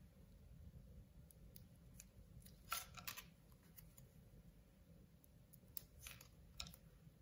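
Faint crinkles and light ticks as a small paper sticker sheet is handled and peeled in gloved fingers, loudest about three seconds in, with a few more near the end.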